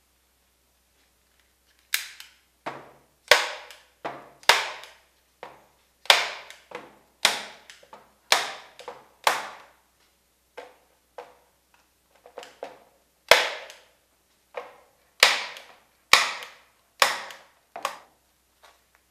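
A series of about twenty sharp strikes or bangs, irregularly spaced, each dying away in a short echo. They start about two seconds in.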